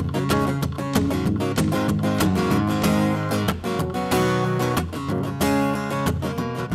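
Acoustic guitar strummed in a steady, driving rhythm, with no singing: a solo instrumental break in a country song.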